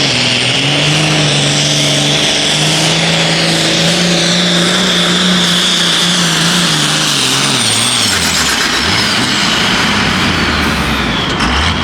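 466 hot farm pulling tractor's turbocharged diesel engine running hard at high revs, with a high turbo whine over it. About seven seconds in, both the engine note and the whine fall steadily as the engine winds down, leaving a lower, rougher running sound.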